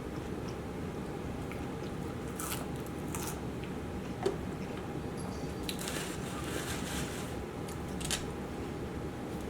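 A person biting and chewing fast food (chicken and fries) close to the microphone: scattered short wet, crunchy mouth sounds over a steady low hum.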